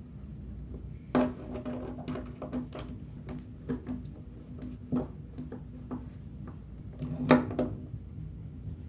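Knocks and clicks of a bathtub drain plug and hand tools being handled against the tub, irregular, the loudest about a second in and near the end, each with a brief low ring.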